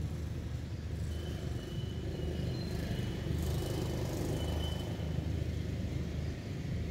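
Steady low rumble of a running engine. A few faint, short, high thin whistles come in the middle.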